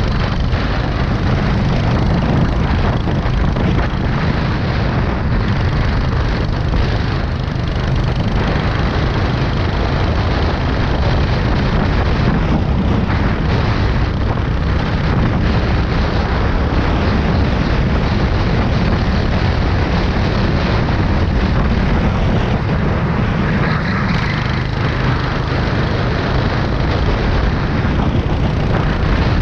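Go-kart engine running steadily at racing speed, heard loud from onboard the kart.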